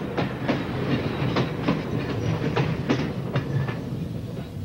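Streetcar running past, a low rumble of the car with its wheels clicking over rail joints about two to three times a second, easing off near the end.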